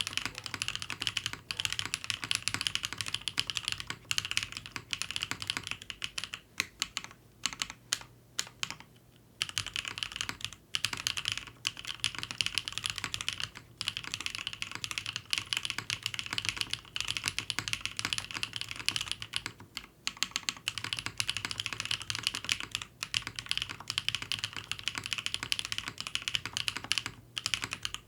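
Continuous typing on a custom mechanical keyboard: BSUN Holy Panda tactile switches on a polycarbonate plate, with GMK keycaps, giving rapid clacking keystrokes. There is a brief pause about eight to nine seconds in.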